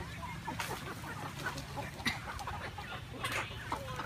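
A flock of gà nòi gamecocks and hens clucking, with scattered short calls.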